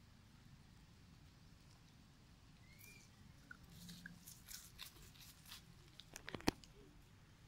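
Faint crackling and rustling of dry leaf litter as macaques move over it, with scattered clicks, the sharpest near the end, and a brief faint chirp about three seconds in.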